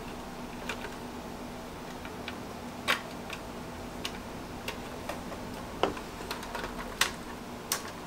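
Scattered, irregular sharp clicks of an Alphasmart fitted with a new mechanical keyboard of clicky blue-stem switches, as its keys and switch are pressed to test whether it works, over a faint low steady hum.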